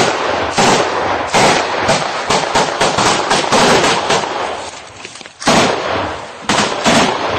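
Loud small-arms gunfire: a quick string of shots for about four seconds, a short lull, then three more shots near the end.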